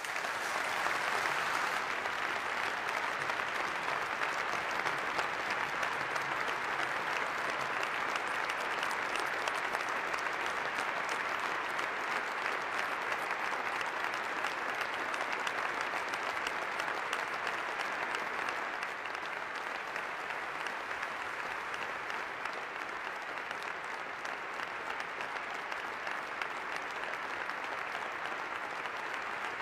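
Large audience applauding, a dense steady clapping that runs on, growing a little softer in the last third.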